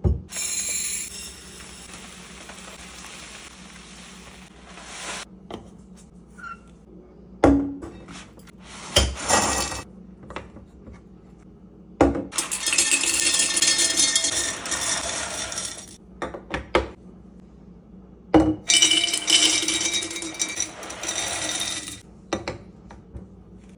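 Empty glass canisters are set down on a wooden countertop with sharp knocks. Dry bow-tie pasta is poured from its cardboard box into a glass canister: a clinking rattle of pieces hitting the glass that runs for several seconds at a time.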